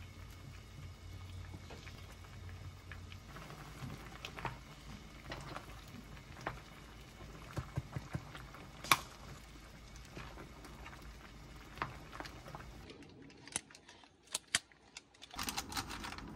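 Kitchen cooking sounds: scattered light clicks and taps of utensils and dishes over a low steady background, with one sharp clink about nine seconds in. The sound drops out briefly a little after thirteen seconds.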